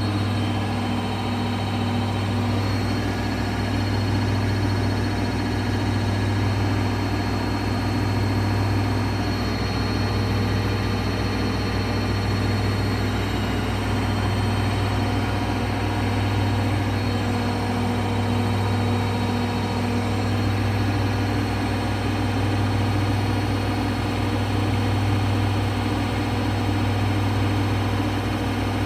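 Daewoo DWD-FT1013 washing machine on its 1000 rpm spin, running at a steady speed with a constant low hum and whir.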